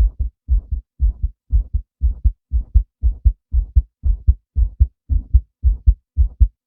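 A man's heartbeat, a steady lub-dub double thump repeating about twice a second.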